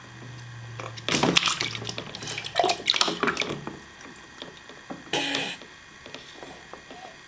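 Water splashing in a plastic baby bathtub: a quick run of splashes and drips lasting about two seconds, then one shorter splash a few seconds later.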